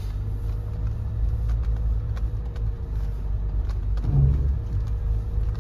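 Low, steady rumble of a Mahindra Thar 4x4 heard from inside the cabin as it creeps downhill in four-low on a snowy, icy road, with a faint steady whine over it.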